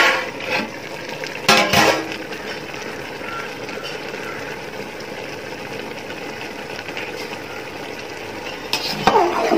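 Rice boiling in water in an aluminium pot: a steady bubbling hiss. A metal clatter, most likely the pot's lid, comes about a second and a half in, and another knock comes near the end.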